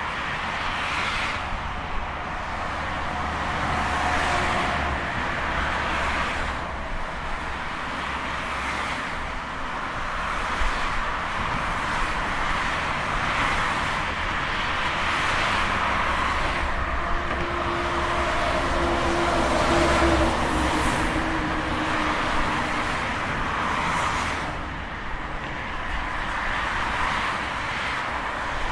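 Steady highway traffic: tyre and engine noise from many vehicles, with individual cars and trucks swelling past every few seconds over a constant low rumble.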